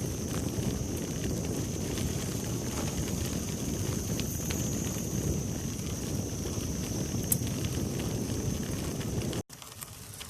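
Bicycle riding on a dirt forest trail: a steady low rumble of wind and tyres on the microphone, with small clicks and crackles from the trail surface and a steady high-pitched whine. The sound cuts out suddenly near the end and comes back as a quieter rumble.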